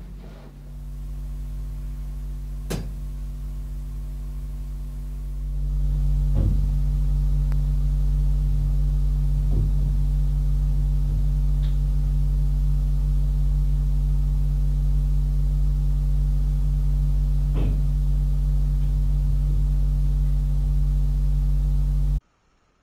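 A steady low electrical hum, louder from about five seconds in, with a handful of isolated thuds spread across it that are captioned as footsteps running away on the stairs. It cuts off suddenly near the end.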